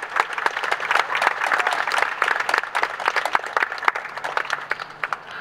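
A small crowd applauding, with separate hand claps heard, thinning out and dying down toward the end.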